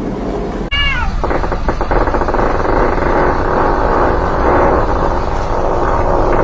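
A cat gives one short meow that falls in pitch, about a second in, followed by a continuous, dense noisy sound.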